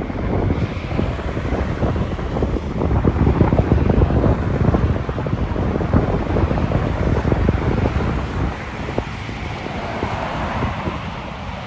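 Wind buffeting the microphone in gusts, heaviest in the middle, over the sound of road traffic, with a car passing close near the end.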